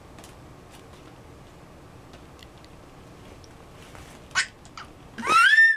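Toddler's high-pitched excited squeal near the end, rising in pitch, after a shorter yelp about four seconds in; before that only faint clicks.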